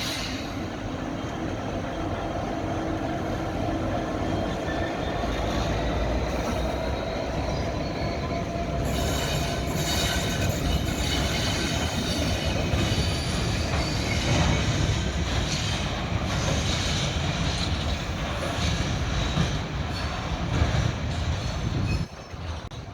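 A train running through on the rails, a steady rumble with a thin high squeal from the wheels. The sound drops away suddenly near the end.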